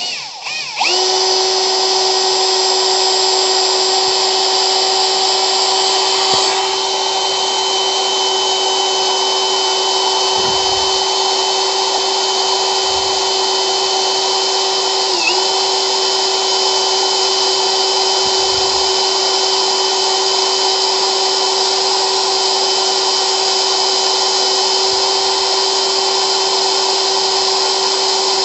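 Brushless cordless drill-driver in low gear, running a steady whine as an 8 mm twist bit grinds at a metal flue pipe. The pitch dips briefly about halfway through as the bit loads up. The bit is hardly cutting, which the driller puts down to a blunt bit.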